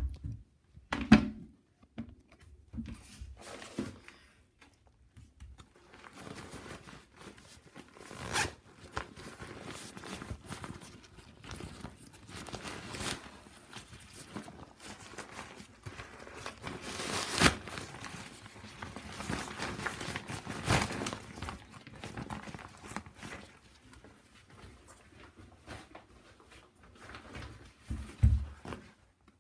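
Ripstop nylon packable backpack being unfolded and handled: irregular fabric rustling with scattered knocks, the loudest about a second in, and a low thump near the end.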